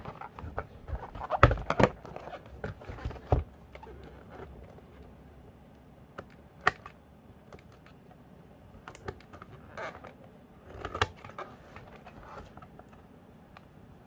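Cardboard keyboard box handled on a table: irregular taps, knocks and scrapes with light rustling. The loudest, densest knocks come in the first few seconds, then single sharp clicks follow at intervals.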